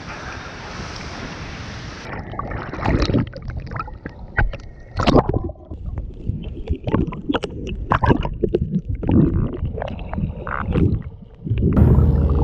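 A steady wash of wind and surf with the camera at the sea surface. After about two seconds it gives way to irregular gurgling, sloshing and knocking of water around the camera as it dips under. Background music begins just before the end.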